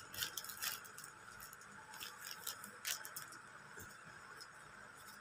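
Faint crinkling and rustling of a plastic courier pouch being opened by hand: a string of small crackles and clicks that thins out after about three seconds.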